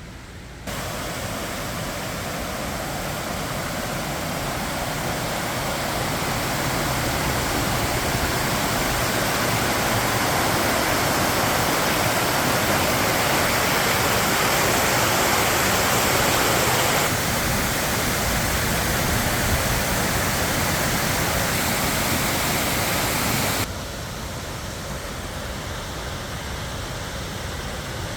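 Waterfall: a steady, dense rush of falling water. It gets louder through the first half and changes level abruptly about a second in, about two-thirds of the way through, and again near the end.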